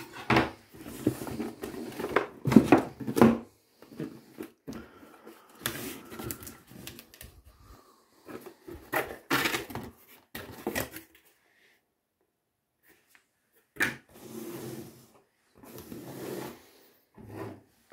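Cardboard shipping box opened by hand: flaps folded back and paper leaflets and cards inside handled, rustling and scraping in irregular bursts. There is a pause of about two seconds two-thirds of the way through, then a single sharp tap.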